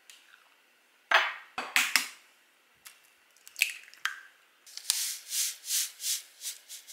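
Kitchen prep sounds: a few sharp knocks of a container and glassware on the counter, and an egg cracked into a glass measuring cup. Then a plastic bag of breadcrumbs is shaken out onto a plate, rustling in rhythmic pulses about two or three times a second.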